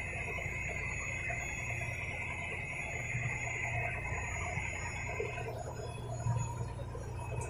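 Fishing boat's engine running steadily with a low drone, and a high steady whine over it that stops about five and a half seconds in.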